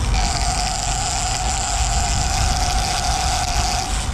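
A steady whine lasting nearly four seconds, starting and stopping abruptly, over the low rumble of the fishing boat's engine and wind and water noise.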